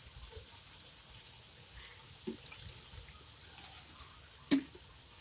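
A cooking utensil clinking against a metal wok as pork adobo is stirred, with a few light clicks and one sharp clink about four and a half seconds in, over faint liquid sounds.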